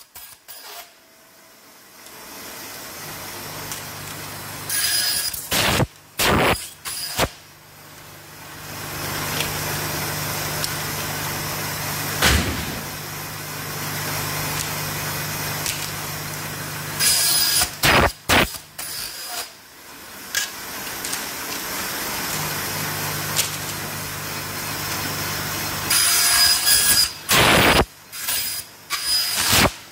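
Industrial vertical band saw running with a steady motor hum that sets in about two seconds in. Its blade cuts through bundled ABS plastic scrap strips in three loud, rasping bursts of separate strokes, about five, seventeen and twenty-six seconds in. There is a single sharp knock near the middle.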